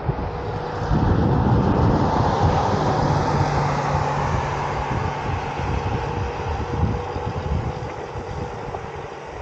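Riding noise on a Onewheel GT electric board: wind rushing over the helmet-mounted microphone with a steady hum underneath. It swells about a second in, then slowly eases off.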